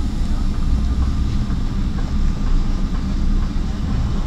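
Steady low rumble inside the cabin of a Boeing 777 taxiing on the ground: engines at taxi power and the aircraft rolling along the taxiway.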